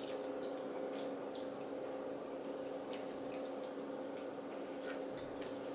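Faint, scattered mouth clicks and squishes of someone chewing a Hot Cheeto-coated fried snack, over a steady low electrical hum.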